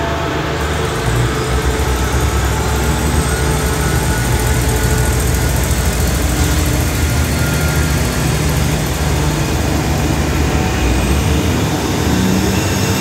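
Diesel multiple-unit railcars pulling slowly away from the platform, their underfloor diesel engines running loudly under load as the cars roll past. The low engine rumble strengthens about a second in and holds steady.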